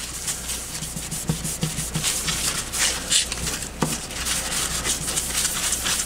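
Paper towel rubbing over a metal heatsink plate in repeated wiping strokes, cleaning off the dust and grit left by lapping, with a few light knocks.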